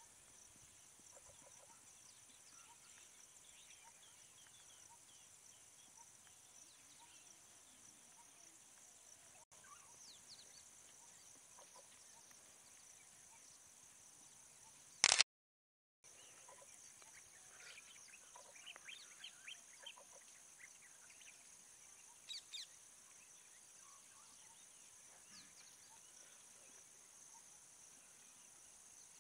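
Faint evening outdoor ambience: a steady high insect drone with scattered bird chirps and calls, which grow busier in the second half. About halfway there is one sharp click, then a second of dead silence.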